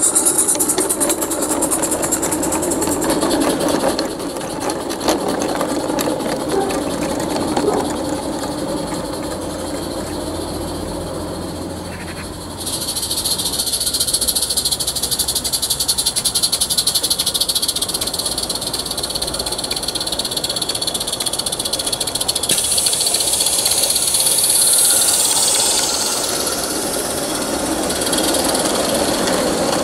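Roundhouse live-steam garden-railway locomotive hauling model coaches: rapid chuffing exhaust with steam hiss and the rattle of small wheels on the track. The hiss grows stronger and the sound louder from about twelve seconds in, as the train comes past close by.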